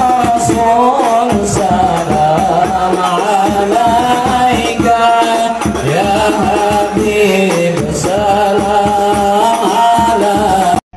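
A man singing sholawat, a devotional Islamic chant in praise of the Prophet, through a microphone, with a hadrah ensemble of hand-held frame drums and a large drum beating along. The sound breaks off for a moment near the end.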